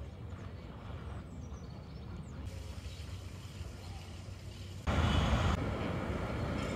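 Faint background rumble, then about five seconds in a louder, steady wash of hall noise and distant crowd murmur in the railway station concourse.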